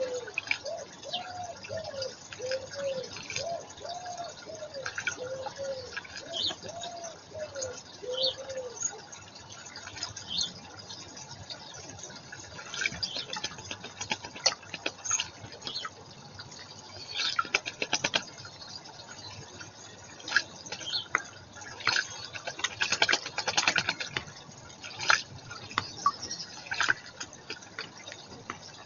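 Water splashing and dripping at a garden pond, with small birds calling in short high chirps. A run of repeated low rise-and-fall notes fills the first eight seconds. The splashy clicks thicken in the second half.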